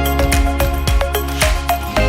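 Background music: a steady instrumental track with a regular beat of plucked or struck notes over held tones.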